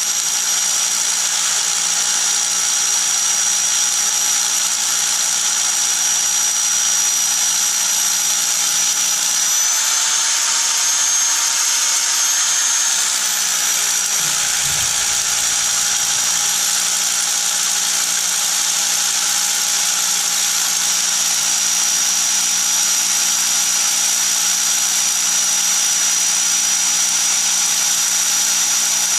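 Corded electric drill running steadily with a 12 mm bit boring into stone, a steady whine over the grinding. The pitch rises slightly for a few seconds about a third of the way in, then settles back.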